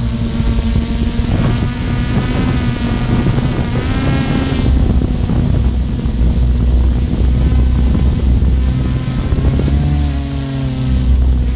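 An engine running steadily and loudly, its pitch rising and falling a few times.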